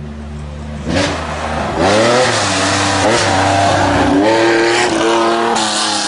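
Lancia Stratos rally car's engine, faint at first and then loud from about a second in as the car arrives. It revs hard, climbing in pitch again and again with short throttle lifts between as it is driven through a loose-surface corner. Near the end gravel sprays under the tyres.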